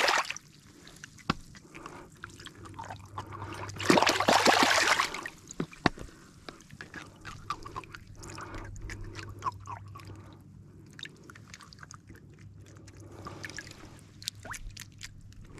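Water sloshing, trickling and splashing as a cleaned trout is rinsed by hand in shallow lake water, with small splashes throughout and one louder, longer splash about four seconds in.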